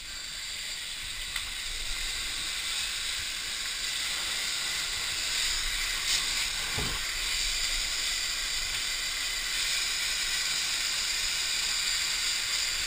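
Steady hiss inside a burning building that slowly grows louder, with a few faint knocks.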